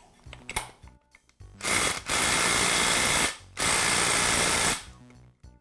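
DeWalt cordless impact wrench hammering in two runs of about a second and a half each, with a short break between, as it tightens the collet adapter onto a router armature's shaft.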